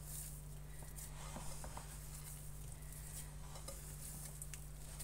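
Faint soft squishing and patting of hands gently working chocolate chips into soft cookie dough in a glass bowl, with a few light clicks, over a steady low hum.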